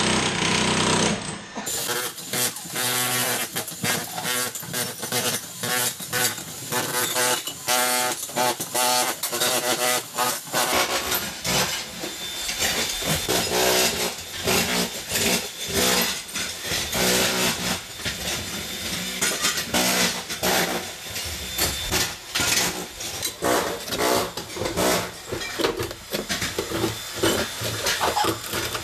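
Floor demolition: a corded demolition hammer rattling against old floor tile, with scraping and debris clattering as broken pieces are cleared.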